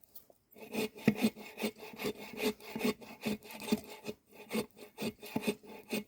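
Hand saw cutting through a log, in steady back-and-forth strokes about two and a half a second, with a brief pause about four seconds in.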